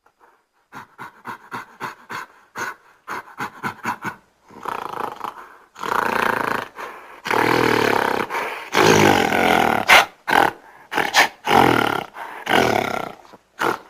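Gorilla vocalizing: a quick run of short grunting hoots, about three a second, then from about five seconds in a string of longer, louder roars.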